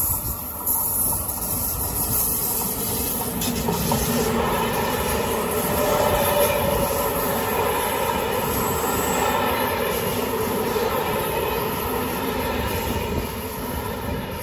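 An SNCF electric locomotive hauling Corail coaches passes on the near track, with a steady rumble of wheels on rail. The noise eases near the end as the last coach goes by.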